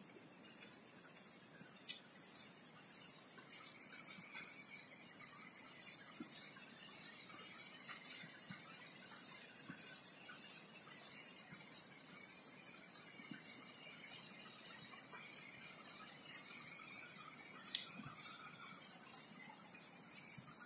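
Footsteps crunching on a gravel dirt track at a steady walking pace, a little under two steps a second, with one sharp click from the handheld phone near the end.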